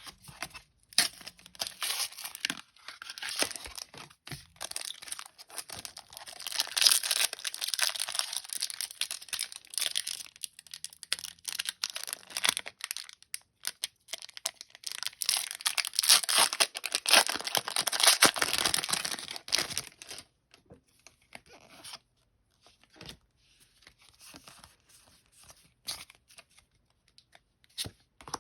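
Foil booster-pack wrapper being torn open and crinkled in two long, loud stretches of crackling tearing. These are followed by quieter scattered clicks and rustles for the last several seconds.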